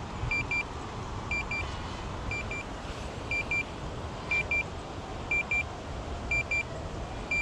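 Drone remote controller beeping, a short double beep about once a second, its warning signal while the drone is in return-to-home. Steady low background noise runs underneath.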